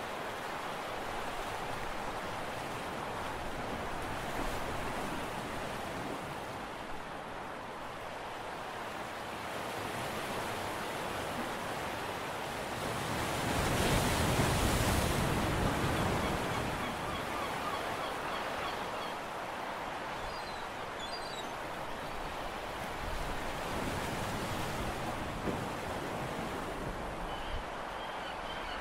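Steady wash of sea water and wind on the microphone, swelling louder for two or three seconds about halfway through. A few faint high chirps come in the second half.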